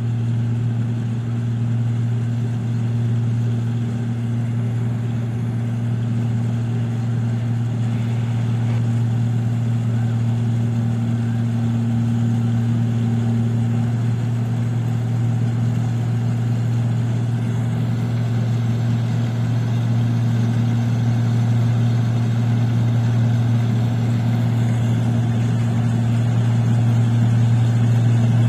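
Engine of a paddy (rice) harvesting machine running steadily with an even drone, getting slightly louder near the end.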